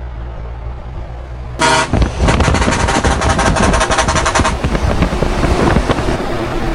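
Heavy truck's engine rumbling low, then about a second and a half in a loud custom truck air horn blasts for about three seconds and cuts off, leaving loud rushing noise.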